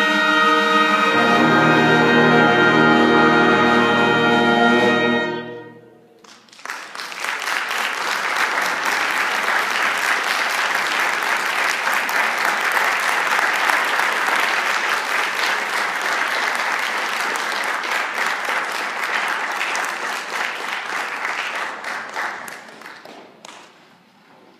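Concert band holding a loud final brass chord, with low notes joining about a second in, cut off together about five seconds in. The audience then breaks into applause, which runs for most of the rest and fades out near the end.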